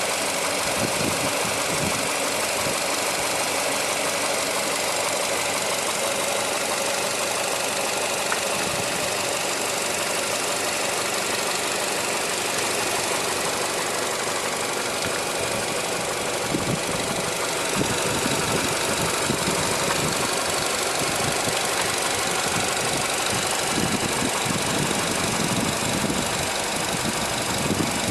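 Nissan MR20DE 2.0-litre four-cylinder petrol engine running steadily with an extraneous noise that the owner has not identified.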